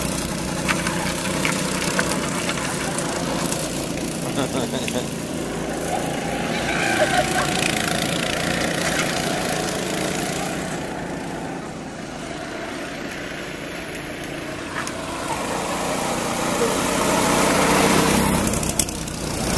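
Small go-kart engines running as karts drive past, the sound falling away around the middle and swelling again near the end as a group of karts approaches.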